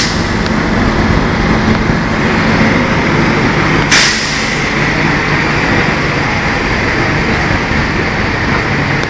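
Kawasaki C151 electric metro train running into a station, a steady, loud rumble of wheels and motors on the track. About four seconds in, as the cab passes close, there is a short sharp hiss.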